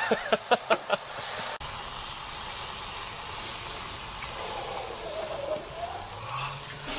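Steady hiss of stew simmering in a cast-iron pot on a gas grill, after a quick run of short sharp sounds at the start.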